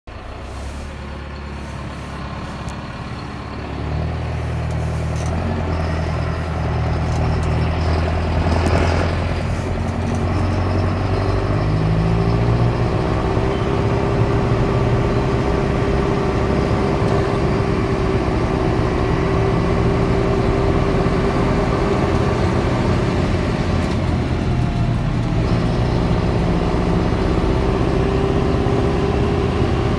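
John Deere 6230 Premium tractor with AutoPowr transmission, heard from inside the cab: the engine running as the tractor pulls away and drives along the road. The engine note rises about four seconds in, and a steady whine joins it from about twelve seconds in.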